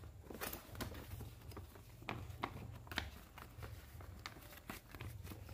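Sheet of paper, the folded instruction manual, rustling and crinkling as it is handled and folded by hand: a string of faint, crisp rustles and ticks.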